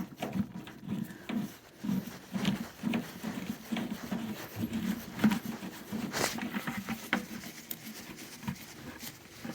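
Water draining out through a hose from an opened drain valve, sputtering and pattering irregularly as the house plumbing's pressure is let off.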